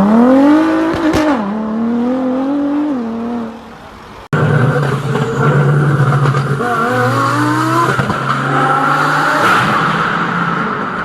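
Supercar engine accelerating hard, its pitch climbing, dropping at an upshift about a second in, then fading away. After an abrupt cut near the middle, another car engine runs loudly, its revs rising and falling a little.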